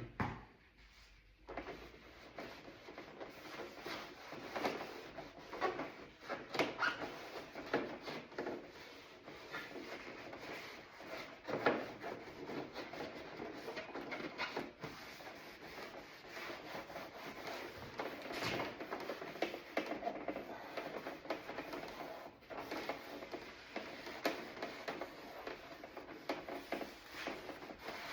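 Hand scrubbing on a door panel: a continuous run of irregular rubbing strokes, the surface being scuffed and cleaned of dirt to prep it for paint.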